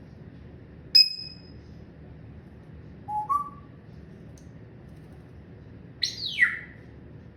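Pet parrot making short whistled calls: a sharp ringing click about a second in, a short two-note whistle stepping up in pitch around three seconds in, and two quick whistles sliding down in pitch near the end.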